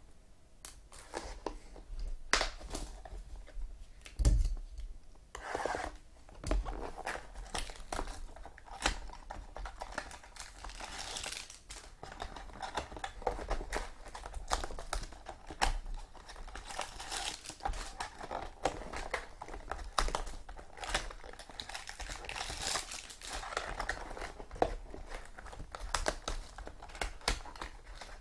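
Trading card pack wrappers being torn open and crinkled by hand, with a steady, irregular crackle and rustle as the packs and cards are handled.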